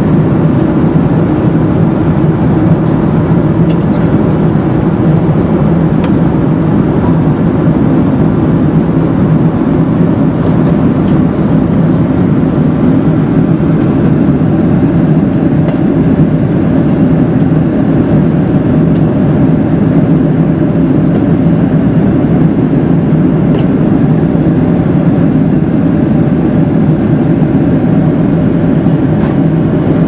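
Steady cabin noise of a Boeing 747-400 in flight, heard from a window seat over the wing: a constant low roar from the General Electric engines and the air rushing past the fuselage, with no change in pitch or level.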